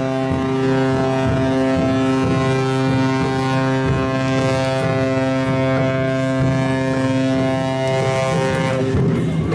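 Ship's horn of a Sado Kisen car ferry sounding one long, steady blast lasting about eight to nine seconds as the ferry leaves the port.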